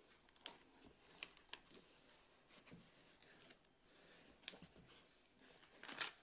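A cardboard box's flaps being handled and the tissue paper packing inside rustled: a scatter of short scrapes and crinkles, growing louder and busier near the end as a sheet of tissue is pulled out.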